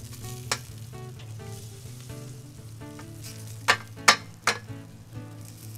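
Sizzling on a charcoal grill, with a few sharp metallic clicks of tongs and a knife against a metal pan, three of them close together a little past halfway. Background music plays underneath.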